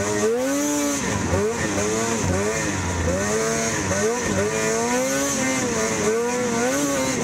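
Lynx RS snocross snowmobile engine racing, heard from on board the sled. Its pitch rises and falls repeatedly as the throttle is worked, about once a second.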